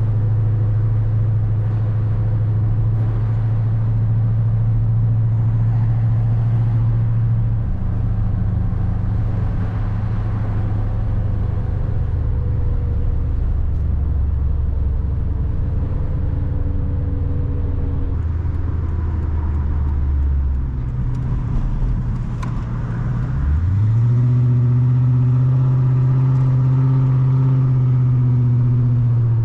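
Chrysler 300C's 5.7-litre HEMI V8 heard from inside the car while driving: a steady cruising drone that settles lower about seven seconds in. Near the end the engine note climbs quickly under acceleration, holds high for several seconds, then drops away.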